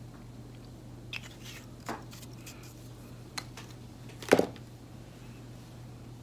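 A few light clicks and knocks of small painting tools handled on a tabletop, the loudest about four seconds in, over a steady low hum.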